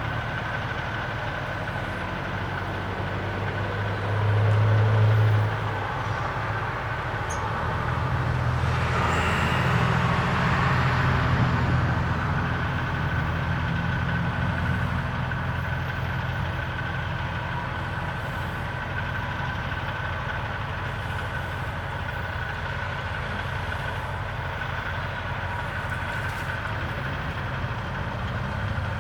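Steady low hum of vehicle engines, like idling or distant traffic. There is a brief louder low drone about four seconds in, and a broader swell from about nine to twelve seconds, as of a vehicle passing.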